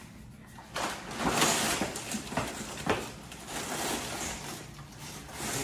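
Sock-clad feet shuffling and scuffing on a tile floor: irregular short scuffs with a few sharper knocks.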